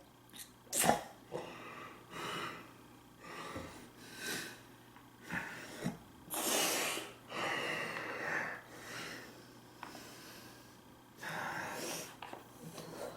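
A person's loud breathing and snorting mouth and nose noises while eating, in uneven bursts, with a sharp click about a second in.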